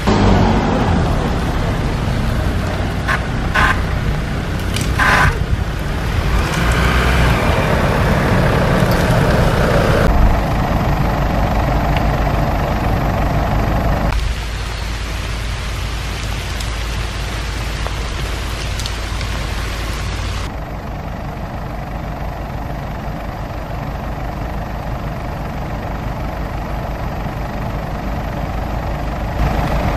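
Off-road 4x4 vehicles crawling along a rough forest track, engines running at low speed with a steady rumble. A few sharp knocks come about three to five seconds in.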